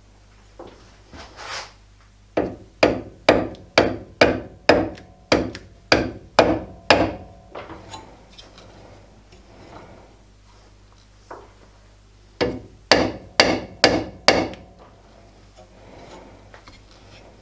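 Hammer taps on a kart engine cylinder clamped on a lathe, knocking it over a little at a time to centre it under a dial indicator: about ten sharp knocks, roughly two a second, a pause, then five more.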